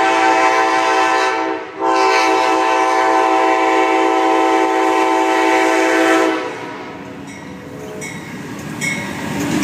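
Amtrak passenger locomotive's air horn sounding a chord of several notes at close range. There is a brief break about a second and a half in, then one long blast that cuts off about six seconds in. The train then rumbles past, with a few sharp wheel clicks near the end.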